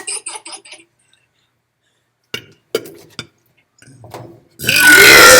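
A few sharp clicks, then near the end a long, loud burp begins, its pitch rising and then holding.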